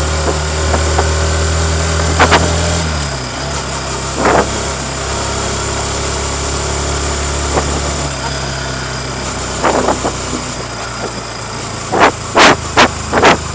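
Yamaha MT-15's 155 cc liquid-cooled single-cylinder engine with its stock exhaust, idling steadily; its note drops a little about three seconds in. Several sharp knocks come through over it, a cluster of loud ones near the end.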